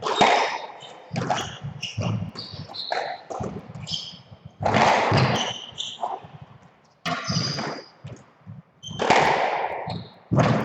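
Squash court sounds: sudden thuds of ball and racket strikes off the walls, and short high squeaks of shoes on the wooden court floor.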